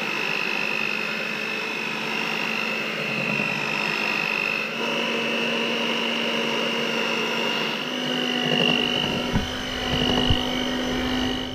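Electrolux electric hand mixer running, its twin beaters whirring through thick chocolate cake batter in a stainless steel bowl. The steady motor whine steps up slightly in pitch about five seconds in and again near eight seconds. A few knocks come near the end, just before the mixer stops.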